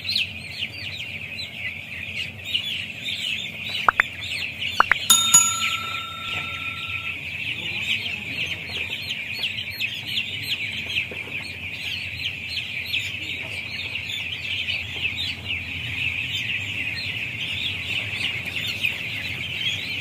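A dense, unbroken chorus of high peeping from a large flock of week-old broiler chicks. A few sharp clicks come about four to five seconds in, followed by a short ringing tone.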